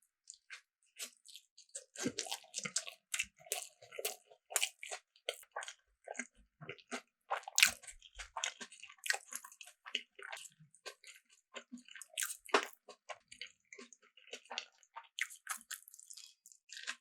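Close-miked eating: a person biting and chewing food, a dense run of quick crackling clicks, with two louder bites about halfway through and again later on.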